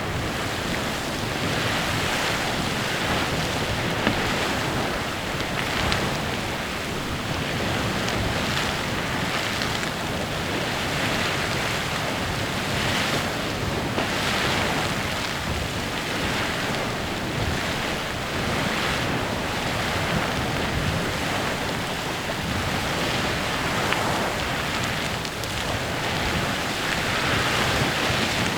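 Clepsydra Geyser erupting: a steady rushing hiss of steam and splashing water jets that swells and eases every second or two.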